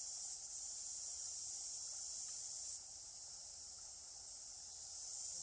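Insects shrilling: a steady high-pitched hiss that drops in level about three seconds in.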